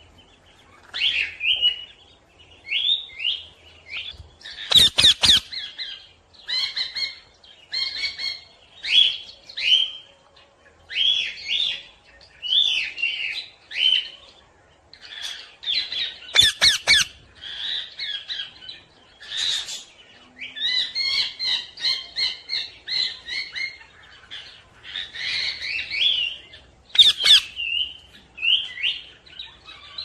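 Parrot calls: a steady run of short squawks and chirps one after another, with two louder, harsher squawks about five seconds in and again around seventeen seconds.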